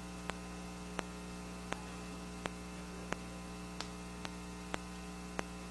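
Steady electrical mains hum with a buzzy stack of overtones, the sound fault on this recording, with faint clicks ticking about every two-thirds of a second.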